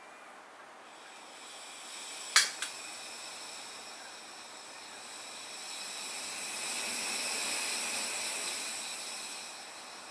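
Gas burner being lit: a steady gas hiss starts, a sharp igniter click comes about two and a half seconds in with a smaller second click, then the burning flame hisses, swelling louder about halfway through and easing off near the end.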